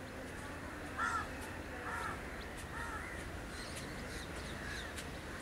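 A crow cawing three times, about a second apart, over a steady low rumble.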